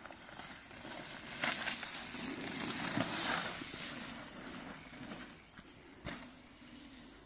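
Mountain bike tyres rolling and scrubbing over loose dirt and grit through a berm, growing louder as the bike passes close about three seconds in, then fading as it rides away.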